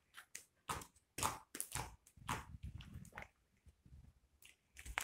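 Homemade glue slime being squeezed, pulled and kneaded by hand: a quick irregular run of soft sticky squelches and clicks.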